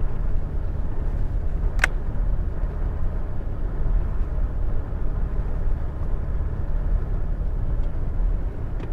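Vehicle engine running with a steady low rumble heard inside the cab while driving along a dirt paddock track, with a single sharp click about two seconds in.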